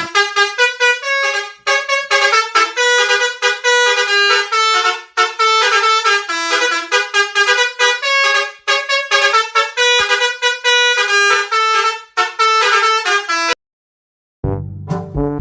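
Telolet bus horn, a multi-tone air horn, playing a fast tune of short notes in phrases that repeat about every three and a half seconds. It cuts off suddenly near the end, and after about a second of silence a different, lower-pitched sound begins.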